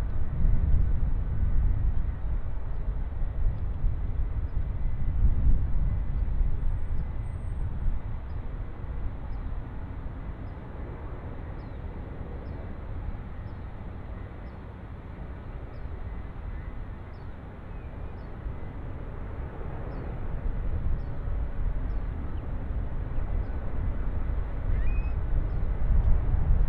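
Low rumble of a jet airliner on its landing approach, loud at first, easing off through the middle and building again near the end.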